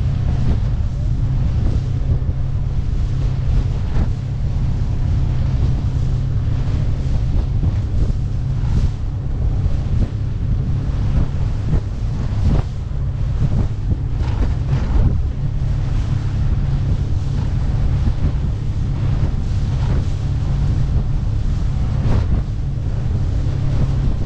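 Wind rumbling on the microphone over the steady running of the boat's Suzuki 50 HP four-stroke outboard, with irregular slaps as the small hull hits the chop.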